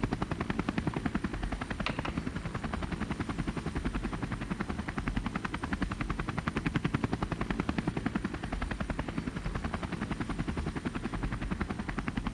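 Helicopter rotor sound effect: a fast, steady chopping of the blades that keeps up without a pause.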